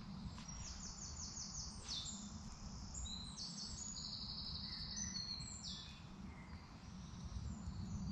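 Woodland birds singing: a quick run of repeated high notes about half a second in, then a string of varied high phrases, over a steady low rumble.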